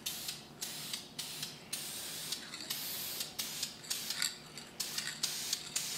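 Aerosol can of VHT roll bar and chassis paint hissing in a series of sharp-edged short bursts, some about a second long, as a light first coat of black is sprayed onto a motorcycle frame.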